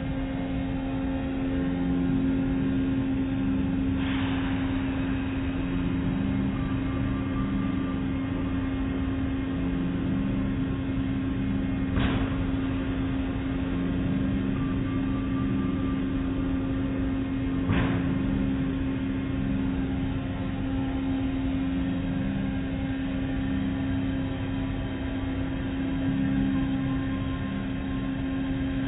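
Automatic car wash running: a steady machine hum with one strong held tone over a rumble of spraying water. Three short sharp knocks come at intervals, about a quarter, two fifths and three fifths of the way through.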